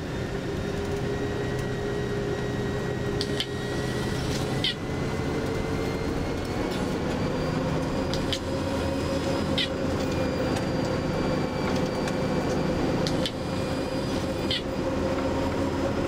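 Tour bus engine running under way, heard from inside the cabin, its pitch rising slowly through the first half and then holding steady. Short sharp clicks come every second or two.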